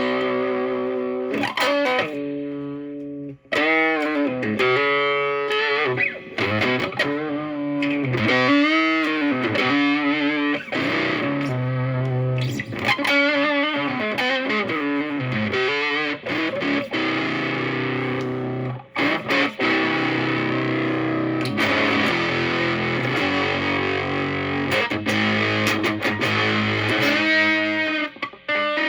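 Fender Stratocaster played through a Moollon Fuzz 14 silicon Fuzz Face-style fuzz pedal set near full gain, into a Marshall Valvestate amp on crunch. Lead lines with string bends and vibrato give way in the second half to longer sustained notes and chords.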